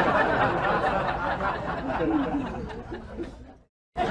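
A group laughing and chattering. It thins out, drops away about three and a half seconds in, and starts again just at the end.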